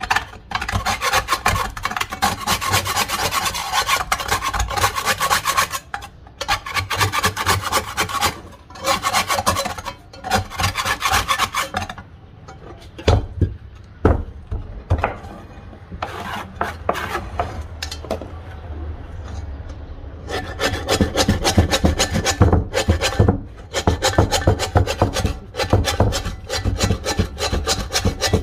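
A metal scraper blade scraping crusted rust and burnt residue off an old cast-iron pot. It goes in fast repeated strokes, in bursts of a few seconds with short pauses between them.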